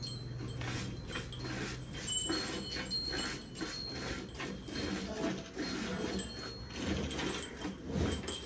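Hand milking: rhythmic squirts of milk striking a steel bucket, about two a second.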